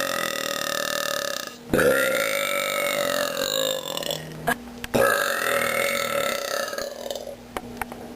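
A person letting out three long, drawn-out burps, each lasting about two seconds, held on a steady pitch that swells and falls away.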